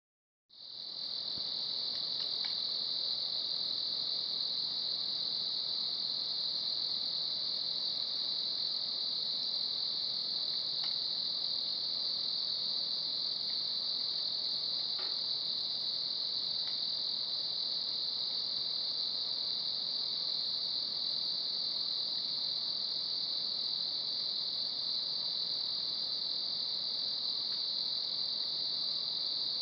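Steady, unbroken high-pitched chorus of night insects, with a wood fire crackling faintly a few times underneath.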